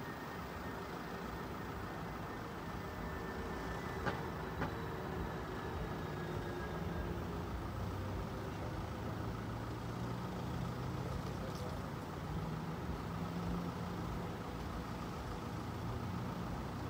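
Steady low hum of road vehicle engines, with a deeper engine note that swells and fades through the middle. Two short sharp clicks come about four seconds in.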